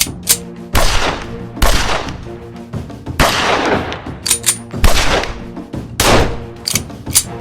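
Single gunshots from World War II–era US firearms, about five sharp reports a second or so apart, each with a long echoing tail. Between them come lighter metallic clicks of weapon handling. Background music plays underneath.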